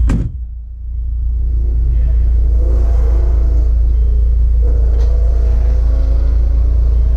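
Deep, steady rumble heard from inside a stationary car's cabin, with a sharp click right at the start. A wavering mechanical whir joins in from about two seconds in.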